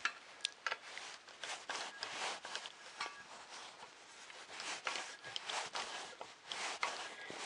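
Screwdriver turning a small bolt into a 3D printer's metal frame, with irregular scraping and rubbing and sharp clicks as the tool and parts are handled.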